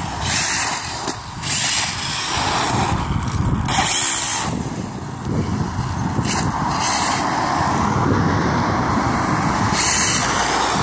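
Brushless electric Hobao Hyper 7 Pro 1/8-scale RC buggy driving on tarmac, its motor whining as it speeds about. A steady rough rumble lies underneath, swelling and easing.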